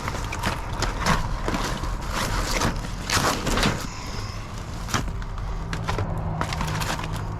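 Rummaging through packaged food in a dumpster: plastic and cardboard packaging crinkling and rustling, with frequent knocks and clatters of items being moved, over a steady low hum.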